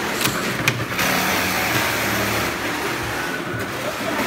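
Industrial sewing machinery running steadily in a shoe-sewing workshop, a continuous mechanical whir with a low hum, with a few sharp clicks in the first second.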